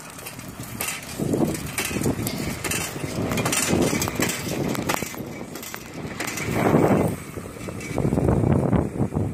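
Wind buffeting the microphone in gusts, loudest in the second half, over clicking and rattling from a bicycle rolling along a paved road.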